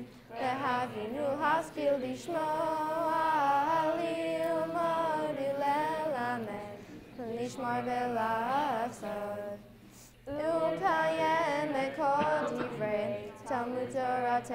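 Two girls' voices chanting Hebrew prayer in unaccompanied song, phrase after phrase, with a brief pause about two-thirds of the way through.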